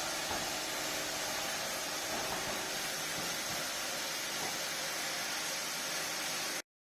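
Steady hissing noise with no clear pitch or rhythm, cutting off abruptly near the end.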